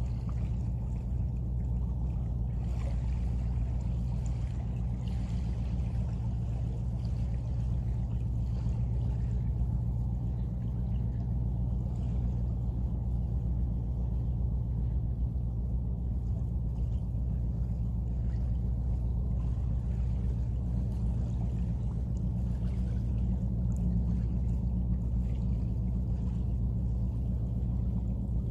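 A steady low hum and rumble that does not change, with no sudden sounds.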